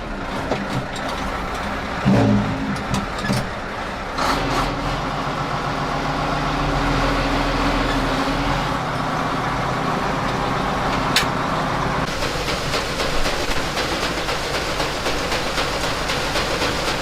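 Farm tractor engine running just after being started. It briefly gets louder about two seconds in. From about twelve seconds in it turns into a busy rattling clatter.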